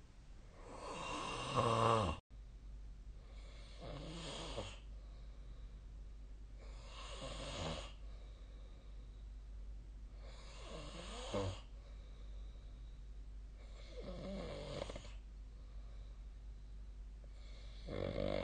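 A sleeping person snoring in a slow, regular rhythm, about one snore every three and a half seconds, six in all. The first snore is the loudest and cuts off abruptly.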